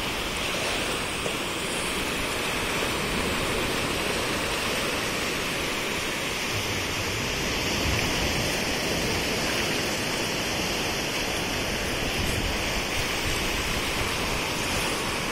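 Sea surf: waves breaking and washing up the beach in a steady rush.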